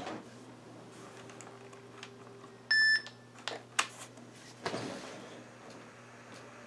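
A single short electronic beep from an IBM ThinkPad 600E laptop as it restarts, followed by a few sharp clicks and a brief rustle, over a steady low hum.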